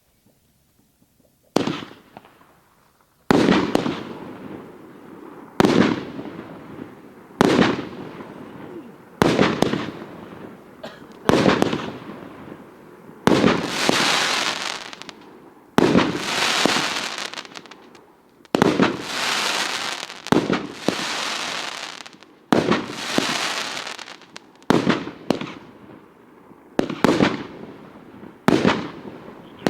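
Multi-shot consumer firework cake firing: a sharp bang about every two seconds, each followed by a fading hiss that lasts a second or two, some tails running longer. It starts about a second and a half in.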